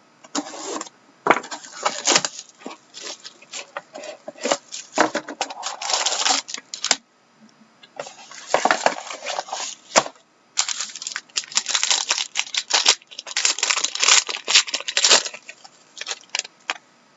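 Plastic wrapping on a sealed box of trading cards being torn open and crinkled, in irregular bursts with short pauses.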